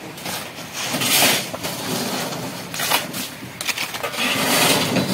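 Shovels scraping and scooping wet gravel and stones in a few rough strokes, the longest towards the end.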